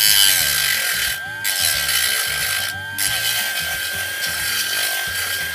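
Dremel rotary tool with a grinding stone running at high speed and grinding into a plastic model-kit part to deepen a recess, a steady high whine under harsh grinding noise. Twice, about a second in and about three seconds in, the grinding noise briefly drops away while the motor keeps whining.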